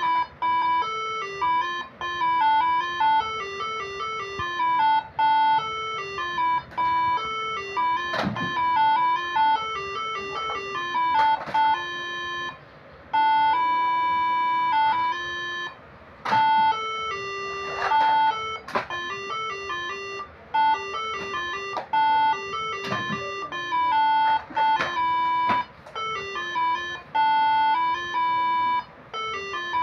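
Moreno MS7 air horn melody module playing its third tune: a bright, chiming melody of quick stepping notes, with a few short breaks between phrases.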